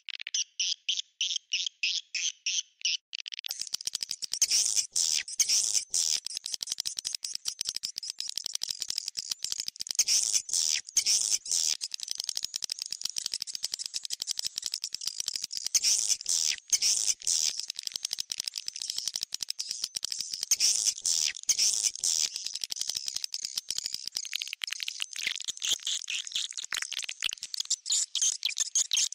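Recorded swiftlet calls played as a lure sound for a swiftlet house: at first an even series of high chirps at about five a second, then, from about three seconds in, a dense, rapid chattering of many overlapping chirps and clicks.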